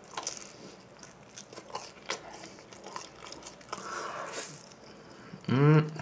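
Close-miked chewing of cheese pizza crust: soft crunchy bites and wet mouth clicks. Near the end comes a short, loud hummed "mmm" of enjoyment from the eater.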